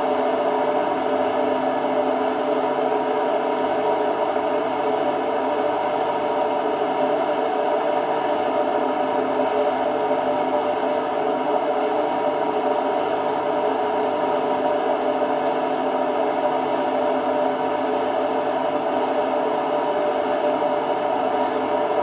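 Indesit IWD71251S washing machine spinning, a steady loud running noise with a whine through it and a faint low throb about once a second underneath. The owner takes the noise on spin for drum bearings that are starting to go.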